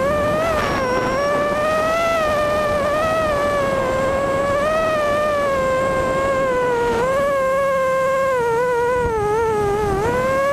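Brushless motors and propellers of a BDX230 mini quadcopter in flight, heard through its onboard camera: a loud, steady whine whose pitch wavers up and down with the throttle, sagging lower shortly before the end and then rising again. A low rush of air runs underneath.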